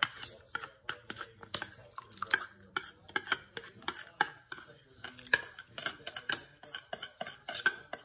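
A butter knife scraping and tapping inside a small metal tin, scooping out wax melt pearls: a quick, uneven run of metallic clicks and scrapes, several a second.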